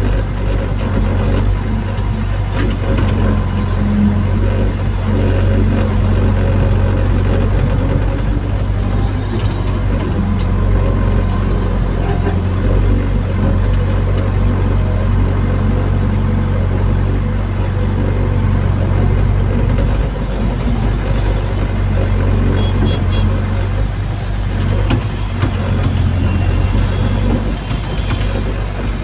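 Hydraulic excavator's diesel engine running steadily as the bucket digs and moves sand, heard from inside the operator's cab.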